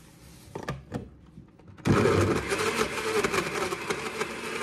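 Countertop blender with a glass jar switched on about two seconds in, running at speed as it blends frozen banana into milk. A few light knocks come before it starts.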